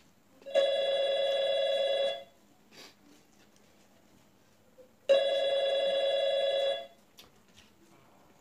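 A phone ringing: a ringtone of about a second and a half, heard twice with a gap of about three seconds between.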